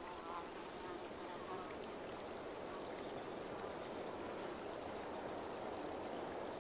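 Steady riverside ambience: a creek's water running, with insects buzzing.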